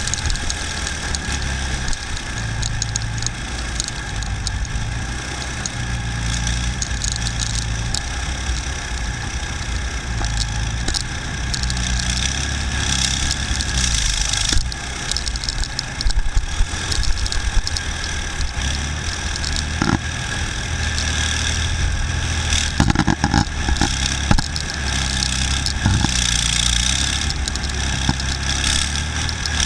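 BVP tracked infantry fighting vehicle on the move, heard from on top of its hull: its diesel engine runs steadily under load with a constant rattle. A cluster of sharp knocks comes about two-thirds of the way in.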